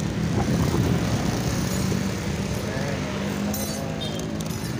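Small motorcycle engine running steadily while riding along a street, with wind and road noise; another engine note rises and falls briefly about three to four seconds in as an oncoming motorcycle passes.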